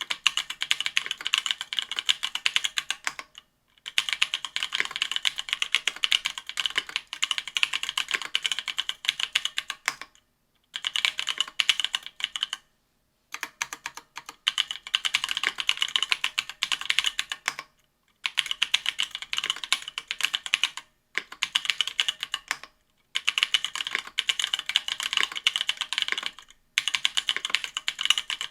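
Typing on a Duck Octagon V3 custom mechanical keyboard with stock Ethereal Panda 68g tactile switches. Rapid key clacks come in runs of a few seconds, broken by short pauses of about half a second to a second.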